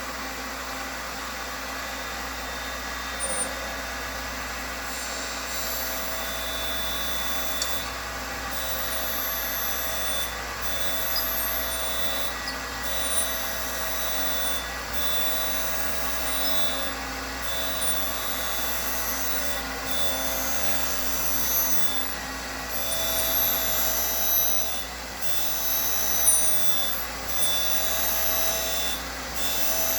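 Boyar Schultz 612 Deluxe surface grinder running and doing manual grinding: a steady motor and spindle hum, joined from about five seconds in by a high grinding hiss that breaks off briefly about every two seconds between passes of the wheel over the work.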